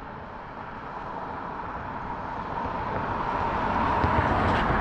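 A car or truck approaching and driving past, its road noise swelling steadily to its loudest about four seconds in, then starting to fade.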